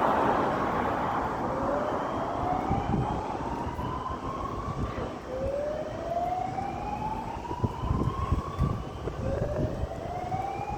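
Fire alarm sounder giving a repeating slow rising whoop: three sweeps climbing in pitch, each about three seconds long with a short gap between. Underneath is a broad rush of noise that is loudest at the start and fades over the first two seconds, and a low rumble.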